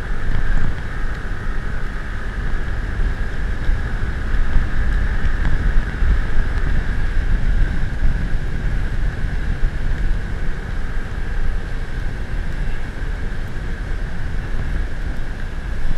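A vehicle on the move: a steady engine drone with road noise and heavy wind rumble on the microphone.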